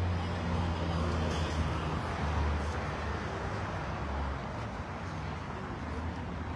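A car engine running with a low rumble that fades away about four seconds in, leaving outdoor background noise.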